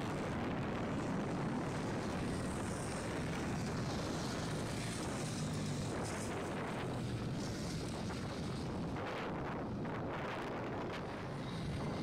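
Steady rumble of wind buffeting the microphone, mixed with small dirt-bike engines running in the distance.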